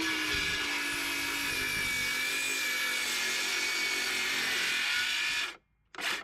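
DeWalt cordless circular saw running and cutting across a 2x4, a steady whine that dips slightly in pitch as the blade bites into the wood. It stops abruptly about five and a half seconds in.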